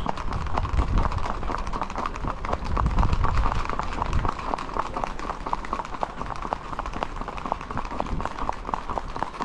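Horses' hooves clip-clopping on a paved road in a rapid, even patter of sharp hoofbeats.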